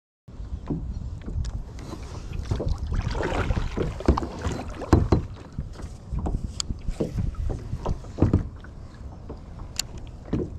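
Handling noise in a plastic fishing kayak: a low rumble of wind and water, with repeated sharp knocks and clicks as a baitcasting rod and reel are worked. The loudest knocks come about four, five and eight seconds in.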